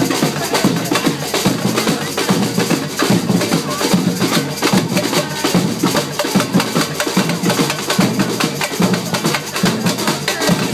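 Live percussion group playing a fast, steady drum rhythm on metal-shelled drums.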